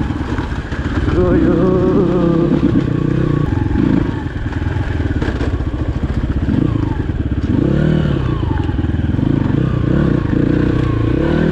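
Crossfire RM 250 dirt bike engine running while riding a rough dirt track, its note rising and falling with the throttle.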